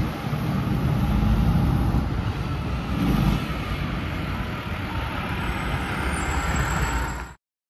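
Road traffic going by, with the diesel engine of a Pierce Arrow XT fire engine drawing nearer, running without a siren as it returns to the station. The sound cuts off suddenly near the end.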